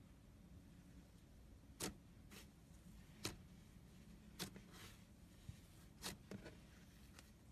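Fluffy slime being pressed and stretched, giving faint sharp pops as air pockets burst: four clearer pops about a second or more apart, with a few softer ones between.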